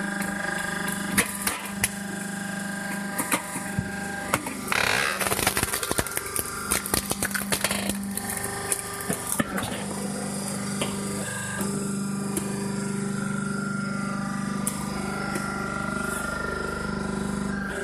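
Homemade firewood processor running: a steady machine hum under a clatter of knocks and clicks from wood and metal parts as rounds are split, with a loud hissing burst about five seconds in.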